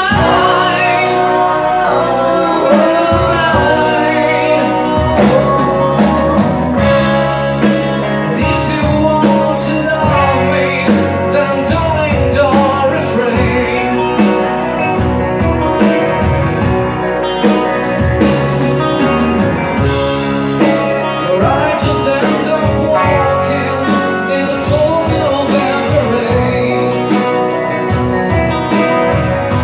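Live rock band playing: electric guitars, bass guitar and drum kit, with a woman singing lead vocals.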